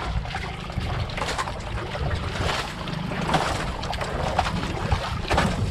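Wind buffeting the microphone in a sea breeze, a steady low rumble, with a few scattered short clicks about once a second.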